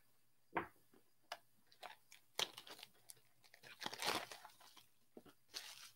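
Plastic shrink-wrap crinkling and tearing as it is stripped off a cardboard blaster box of trading cards, in a string of short bursts, loudest about four seconds in.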